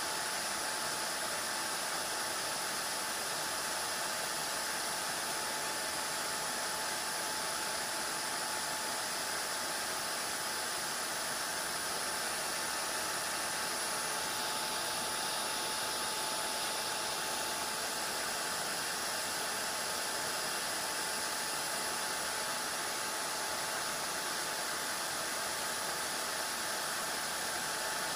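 Shaper Origin handheld CNC router running and cutting letters into wood, with its dust-extraction vacuum running through the attached hose. A steady, even whir with a thin steady whine.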